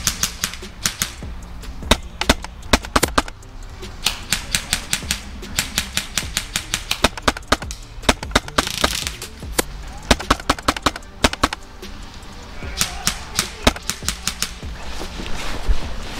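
Airsoft guns firing in repeated volleys: rapid sharp cracks, several a second, in clusters separated by short pauses.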